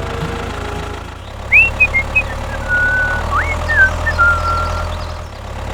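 A small machine's motor running steadily with a low hum. From about a second and a half in, a string of short high whistling tones plays over it, some rising sharply and some held flat, ending about four and a half seconds in.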